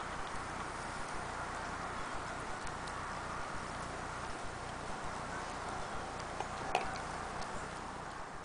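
A dog's claws ticking lightly on concrete as it walks and sniffs, over a steady background hiss, with one sharper click near the end.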